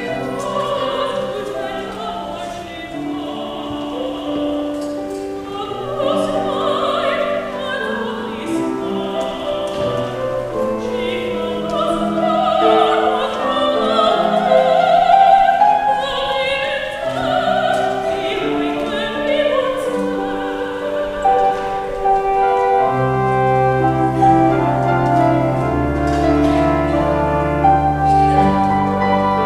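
Church choir singing an anthem with organ and piano accompaniment. Deep held bass notes come in about two-thirds of the way through.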